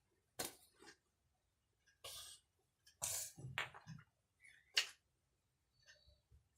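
Wooden toy blocks knocking and clacking together now and then: a few scattered short, sharp knocks, the sharpest just under five seconds in.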